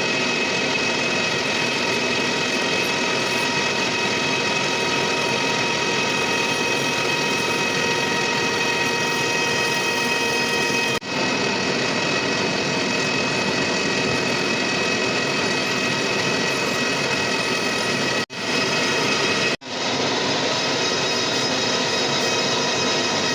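Machine tool running steadily while machining a metal flange: a constant mechanical noise with several steady whining tones. The sound drops out abruptly and briefly three times, once about halfway and twice a few seconds later.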